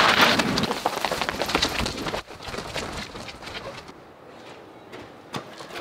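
Running footsteps on pavement, a fast, loud patter of steps for about the first two seconds, then dropping to fainter, scattered steps.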